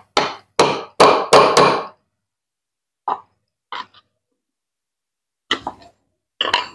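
Sharp metal-on-metal tapping as a steel rod held in the new bushing is struck with pliers, setting the replacement bushing firmly in the base of a Maspion blender cup. About five quick blows come in the first two seconds, then a few single and paired taps spaced out after that.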